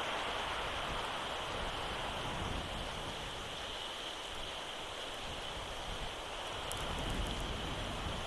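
Steady hiss of falling rain and sleet, with a few faint ticks about seven seconds in.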